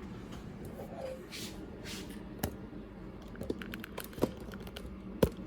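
Handling noise at a repair bench: scattered light clicks and taps with a couple of short rustles, over a faint steady hum.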